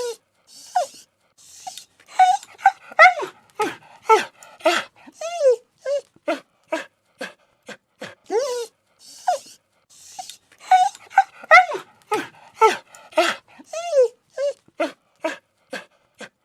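A dog whining and whimpering: a quick run of short, high-pitched crying whines that bend up and down, with breathy huffs between them. The same run of cries repeats about halfway through.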